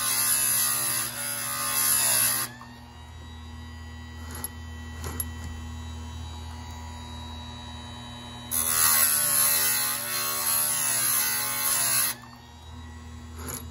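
Bench-top electric chainsaw sharpener: the motor hums steadily throughout while the grinding wheel is lowered onto a chain's cutting tooth twice, each grind a loud hissing whir of stone on steel. The first grind ends about two and a half seconds in; the second runs from about eight and a half to twelve seconds in. Two faint clicks come in the quieter stretch between the grinds.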